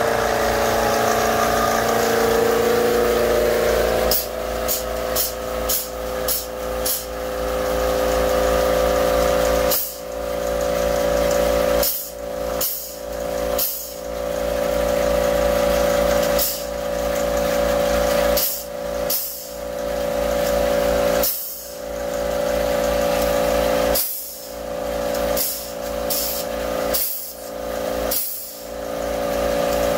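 Small portable air compressor running with a steady hum, its pitch sliding down and settling about four seconds in. Short hisses of air recur irregularly over it, a dozen or so, each briefly dipping the motor note, as a pneumatic caulking gun on the air hose is triggered to push thickened epoxy into drilled holes.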